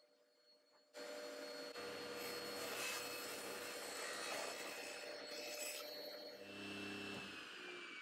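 Laguna Fusion 3 table saw ripping a board: a sudden loud cutting noise starts about a second in and runs for several seconds. Near the end the saw's whine falls steadily in pitch as the blade slows down.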